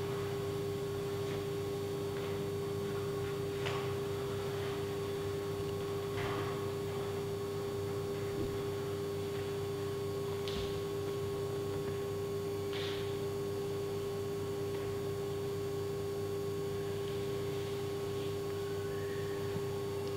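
A steady hum holding one clear tone, with a few faint taps scattered through it.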